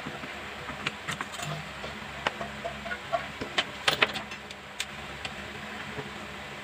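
Scattered light clicks and taps, bunched about four seconds in, over a steady low hum.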